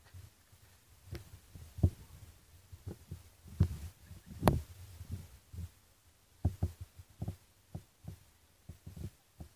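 Handling noise on a handheld camera's microphone: about fifteen irregular low thumps and bumps, with the loudest a little under two seconds in and about halfway through.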